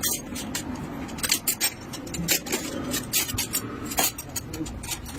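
Irregular sharp metallic clinks and taps of hand tools against metal parts, several a second.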